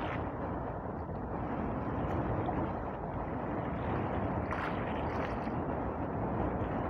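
Steady wind on the microphone and sea water lapping against the hull of a small fishing boat drifting on choppy open sea.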